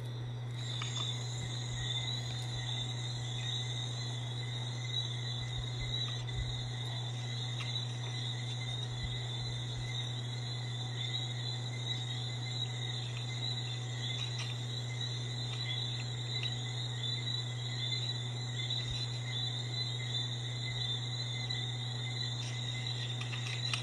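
Crickets chirping in a continuous, even trill, over a steady low hum.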